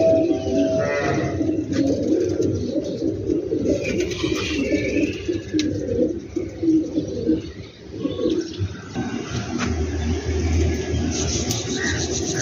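Domestic pigeons cooing over and over, several birds overlapping in low, wavering calls.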